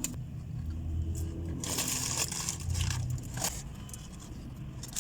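Rustling and crunching as a KFC takeaway meal and its packaging are handled, loudest about two seconds in with a shorter burst about a second later, over a low steady hum.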